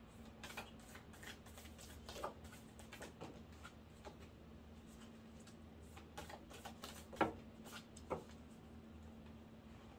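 A deck of tarot-size oracle cards being shuffled by hand: soft riffling and flicking with scattered light clicks, and a few sharper taps, the loudest about seven seconds in.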